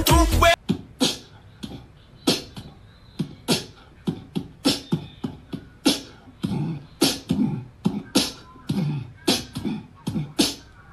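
A white cat hissing over and over in short, sharp bursts, roughly two a second. It stands puffed up with an arched back, facing a slipper it is wary of.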